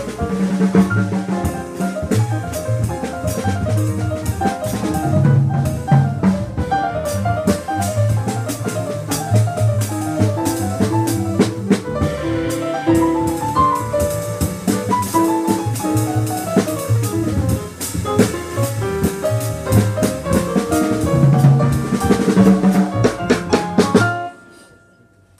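Jazz piano trio playing live: grand piano, upright double bass and drum kit with cymbals. The music stops abruptly about a second before the end.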